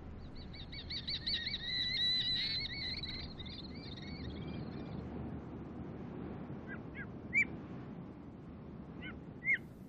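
A bird singing: a quick run of repeated high warbling notes for the first few seconds, then a few single short chirps, over a faint hiss.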